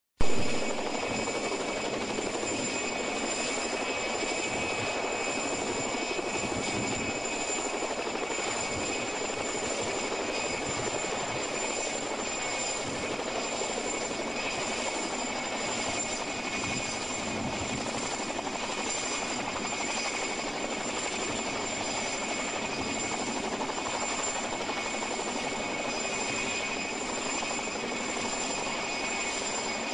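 Mil Mi-2 helicopter's twin turboshaft engines and rotor running at takeoff power as it lifts off, hovers and flies off low: a steady high turbine whine over the rotor wash, with a brief loud jolt at the very start.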